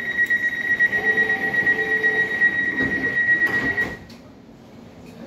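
Elizabeth line Class 345 train's door-closing warning, a high-pitched pulsing tone that sounds for about four seconds while the sliding doors shut. It ends with a few knocks as the doors close, then a quieter hum.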